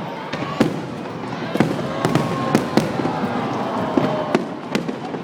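Fireworks display: aerial shells bursting in a string of sharp, irregular bangs, about ten in a few seconds, over a continuous background rumble of the show.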